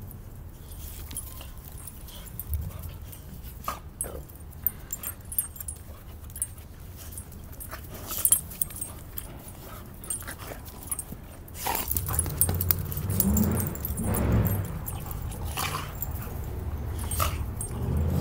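Two dogs play-fighting, with play growls, yips and scuffling. The noise is sparse at first and grows louder and more continuous in the last third.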